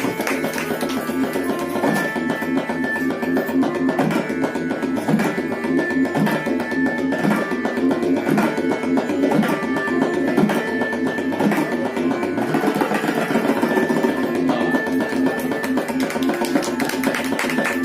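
Tabla solo: a fast, dense run of strokes on the tabla, set against a lehra, a short melody repeated steadily as the accompaniment.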